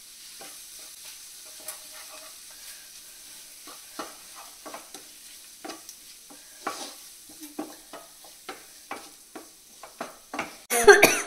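Wooden spatula stirring and scraping sliced mushrooms and onions around a non-stick frying pan, over a soft steady sizzle of the sauté. The strokes come quicker in the second half, about two a second. A brief louder burst near the end.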